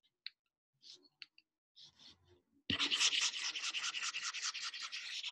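A few faint taps, then from about halfway through a pen stylus scrubbing fast back and forth on a drawing tablet, several strokes a second, as handwriting on a digital whiteboard is erased.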